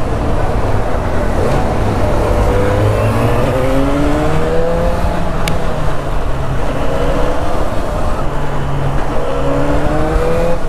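Yamaha XJ6's inline-four engine running with no exhaust silencer, so it is loud and raw, as the motorcycle rides through traffic. The engine pitch climbs under throttle several times and drops back in between.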